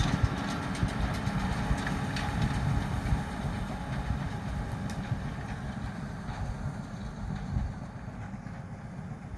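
New Holland T7 245 tractor's six-cylinder diesel engine running steadily as it pulls a round baler, growing gradually fainter and duller as it moves away.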